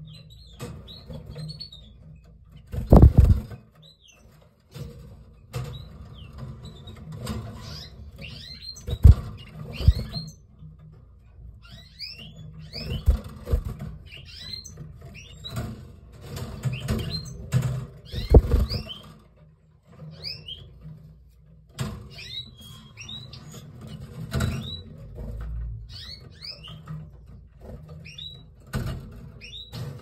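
Pair of canaries in a cage giving short, high, quick chirps throughout, with a few louder thumps among them, the loudest about three, nine and eighteen seconds in.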